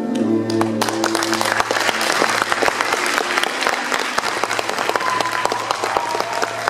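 Audience applause for the cast's curtain-call bow. It starts about a second in as the closing music fades out.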